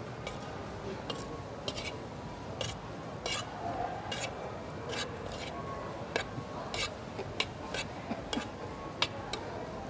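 A spoon stirring curry-coated chickpeas and chopped red onion in a large bowl, with irregular light clicks and scrapes as it knocks and drags against the bowl.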